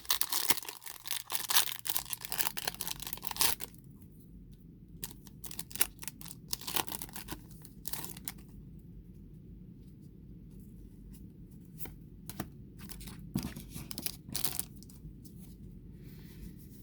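Foil wrapper of a Pokémon Shining Fates booster pack torn open in a quick run of crinkly rips lasting about three and a half seconds, followed by scattered light clicks and rustles of the cards being handled.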